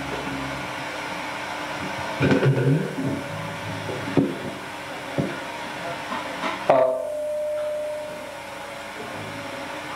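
Amplified live-stage noise between songs: steady hum and hiss from the sound system, a few knocks and short loud bursts, and about two-thirds of the way through a single held tone that starts sharply and fades over a couple of seconds.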